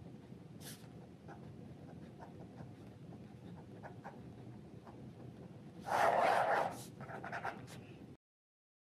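A ballpoint pen writing on paper, a faint steady scratching with small ticks. About six seconds in there is a short, louder noise, followed by a few smaller ones, and then the sound cuts off abruptly.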